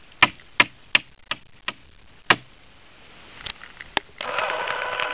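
Hand-swung hammer tacker striking staples through a plastic trough liner into a wooden 2x4, about eight separate sharp whacks at an uneven pace. Near the end a steady rushing noise with a hum sets in.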